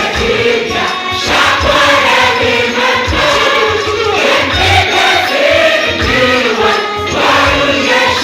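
A choir singing a worship song over a steady drum beat.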